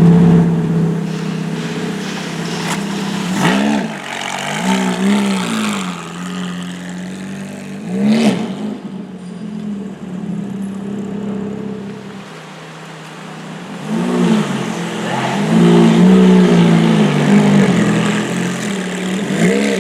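Ferrari F430's 4.3-litre V8 idling steadily, with repeated short throttle blips that rev it up and let it drop straight back to idle, several in a cluster a few seconds in and again later on.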